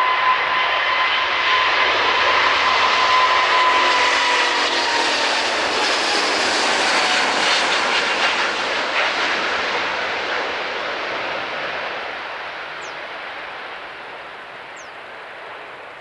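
Airbus A350's Rolls-Royce Trent XWB engines at take-off thrust as the jet rolls, lifts off and climbs away: a loud roar with a steady whine that drops in pitch as the aircraft passes, then fading over the last few seconds as it climbs out.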